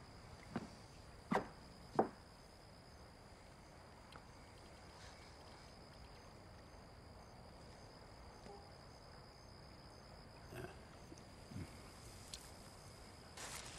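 Quiet night ambience with a faint, steady, high insect chirr, likely crickets. Three short, sudden sounds come within the first two seconds and a few fainter ones about two-thirds of the way in. Music starts to swell at the very end.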